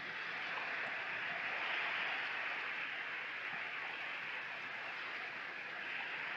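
Sea waves washing onto a shingle beach: a steady hiss of surf that swells about two seconds in and then eases slightly.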